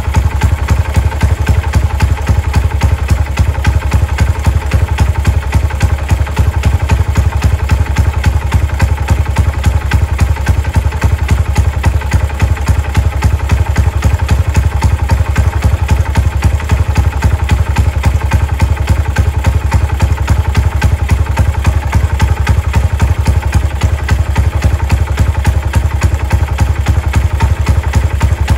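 Kawasaki KZ200 (Binter Merzy) single-cylinder four-stroke engine idling steadily, its exhaust giving an even, quick beat.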